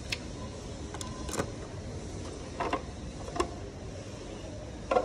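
Battery side cover of a Royal Enfield Bullet being pulled off its mounts: a handful of short, separate clicks and knocks over steady background noise.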